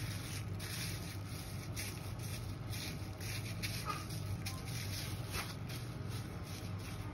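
Plastic bag of marinating meat being kneaded by hand, the plastic rustling and crinkling in quick irregular bursts over a steady low hum.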